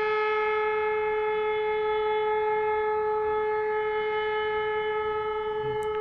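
Civil-defence air-raid siren sounding a training alert, holding one steady, unwavering tone.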